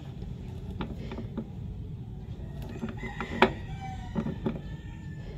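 Scattered sharp clicks of a click-type torque wrench tightening cylinder head bolts, set to 60, the loudest about three and a half seconds in. Chickens and a rooster sound faintly in the background.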